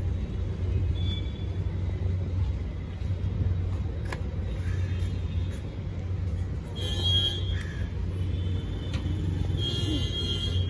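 Street traffic: a steady low rumble of passing and idling cars, with a single sharp click about four seconds in and brief high-pitched tones about seven and ten seconds in.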